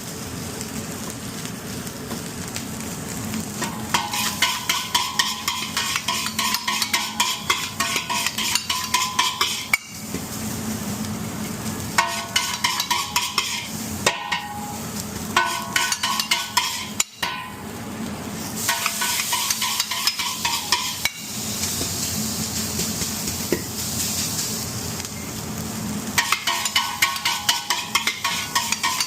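Food sizzling as it fries in a pan, stirred with a metal spatula in repeated spells of quick scraping and clinking against the pan, with steadier sizzling in between.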